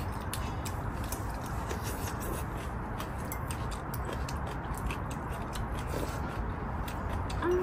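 Eating at the table: scattered small clicks of chopsticks and a spoon against ceramic bowls, along with the sounds of eating congee, over a steady low background noise.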